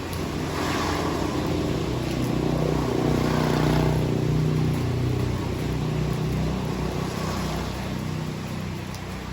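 A motor vehicle engine passing by, its hum swelling to a peak about halfway through and then fading, over steady heavy rain.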